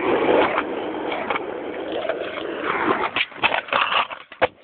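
Skateboard rolling and scraping along a hard surface for about three seconds, then a quick series of sharp clacks of the board near the end.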